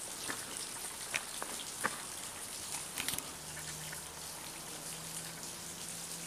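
Water drops tapping irregularly over a steady hiss. A low steady hum comes in about three seconds in.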